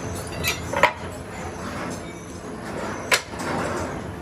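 Steady workshop hum broken by three short, sharp clinks of metal parts being handled: two close together near the start and one about three seconds in.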